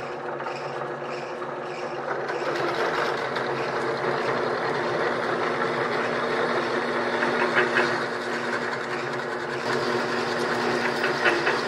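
Milling machine spindle running a step drill through a thin aluminium rib to open up its lightening holes: a steady motor hum under a dense cutting noise that thickens about two seconds in, with a few sharp ticks near the end.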